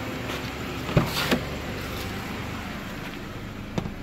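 A car door clicks open about a second in, followed by a couple of soft knocks, then another short click near the end, over the steady running of the idling car.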